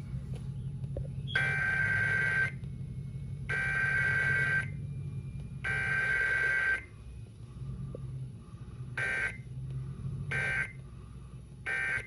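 Emergency Alert System SAME data bursts for a Required Weekly Test, played through a clock radio's speaker. Three one-second header bursts, then three short end-of-message bursts, over a low steady hum.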